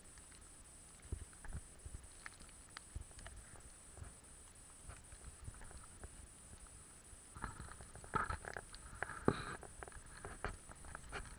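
Footsteps crunching in fresh snow, faint and sparse at first, then coming thicker and louder from about two-thirds of the way in.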